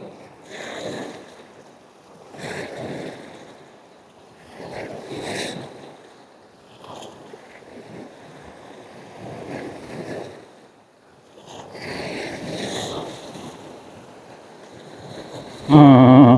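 Small waves breaking and washing up the sand, swelling and fading every two seconds or so, with some wind on the microphone. Near the end a loud, short voice cuts in.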